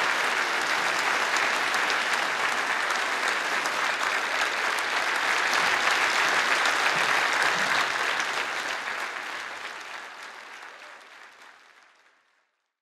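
Audience applauding steadily, then fading out gradually to silence over the last few seconds.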